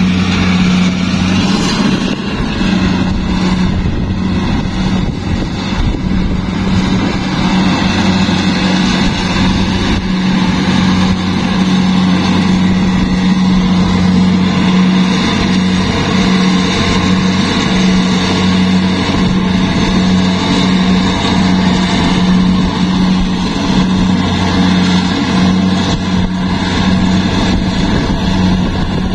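Rice combine harvester's diesel engine running steadily at constant speed, a loud, even low drone with the clatter and rush of the machine working.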